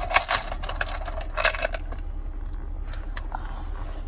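Small metal items clinking and rattling as they are handled, several sharp clinks in the first two seconds and fewer after, over a steady low hum.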